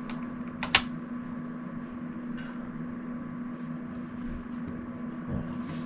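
Steady low hum, with one sharp click a little under a second in.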